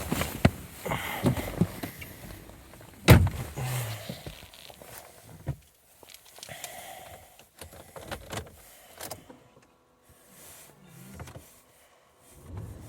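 Clicks, creaks and rustling of someone handling a car, with one loud thunk about three seconds in, like a car door shutting.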